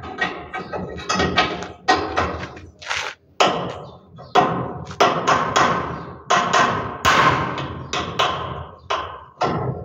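Repeated hammer blows on a metal part being fitted to a Perkins 4203 engine, about two strikes a second, each ringing briefly. The part is being knocked over to bring it into line with its bolt hole.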